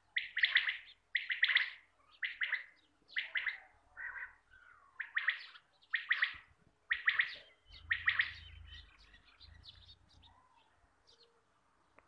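Quail calling over and over, a short pulsed call about once a second, thinning out into weaker, scattered chirps after about eight seconds.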